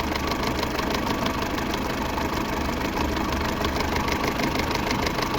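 Peugeot 607's 2.2 petrol four-cylinder engine idling steadily, with a fast, light ticking over the run. A replacement intake camshaft gear has just been fitted to cure a hard knock from the camshaft timing area, and the owner judges the noise improved.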